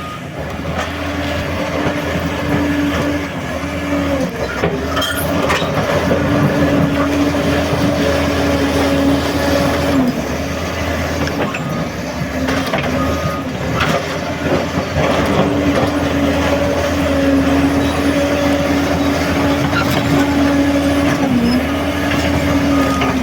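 Crawler bulldozer's diesel engine running steadily while working, its note dipping briefly a few times, with occasional sharp metallic clanks.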